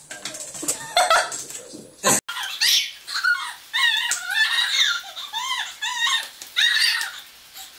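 Small dachshund puppy barking in a quick run of short, high-pitched yaps, about two or three a second, starting about two seconds in.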